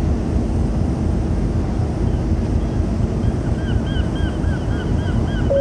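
Wind buffeting the microphone over the steady low rumble and hum of the ferry's machinery, heard from the open deck. From about three seconds in, faint chirps repeat a few times a second.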